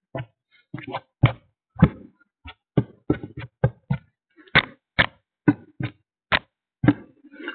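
An irregular series of short knocks and taps, roughly three a second, with brief silences between them.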